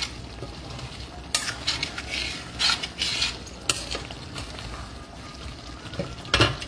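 A metal spoon scraping and clinking against a stainless-steel frying pan as a thick, simmering sauce is stirred, with the pan sizzling steadily underneath. The strokes come irregularly, several times, the loudest near the end.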